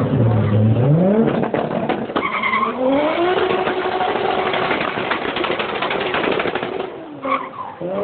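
Toyota Supra engine revving hard while the rear tyres spin and screech in a burnout. The revs climb twice, hold high and steady for several seconds, then drop away about seven seconds in.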